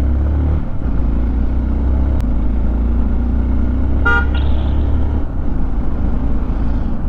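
Motorcycle on the move: steady low engine and wind rumble, with a short horn toot about four seconds in.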